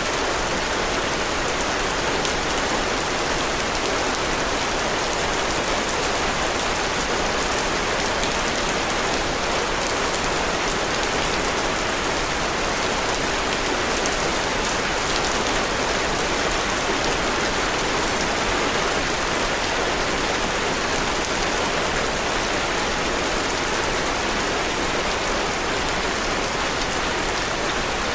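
Heavy rain falling steadily, an even, unbroken wash of drops that does not let up.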